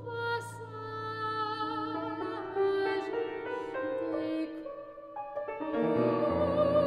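Female classical singer singing with vibrato over grand piano accompaniment, in a contemporary art song. The piano holds low notes under the voice, with a new low chord struck about six seconds in.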